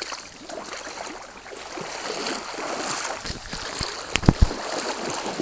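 Shallow creek water running and splashing, with two dull low thumps a little over four seconds in.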